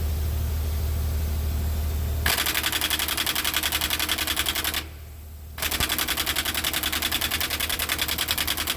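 Half-inch air impact wrench hammering on a jackshaft bolt in two bursts, about two and a half seconds and then over three seconds, with a short break between; before the first burst only the low hum of the idling truck is heard. The gun is running short of air from the truck's onboard compressor at idle, so it runs not really well.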